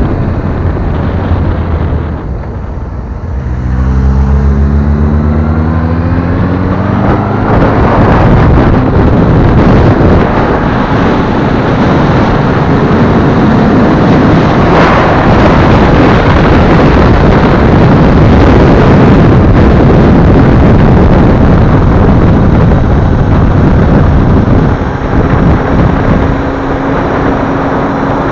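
Honda CBF1000's inline-four engine heard onboard at speed, with heavy wind noise on the microphone. Two to four seconds in the engine eases off, then climbs steeply in pitch as it accelerates, after which wind and engine noise dominate; near the end it eases again to a steadier note.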